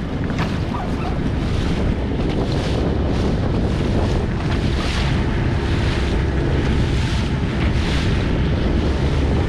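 Strong wind buffeting the microphone over water rushing and splashing past a moving boat, in surges every second or so.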